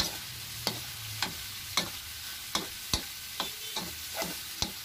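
A pork stir-fry with freshly added green chilies sizzles in a pan while a utensil stirs it, knocking against the pan about twice a second.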